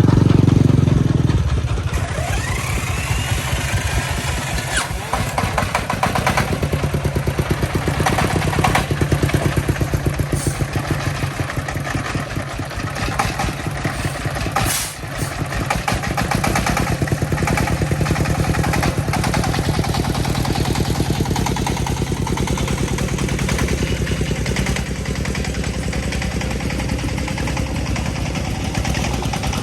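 Single-cylinder diesel engine of a công nông farm vehicle running with a fast, steady chug. It is louder and deeper for the first second or so, then settles, with a few scattered knocks and rattles over it.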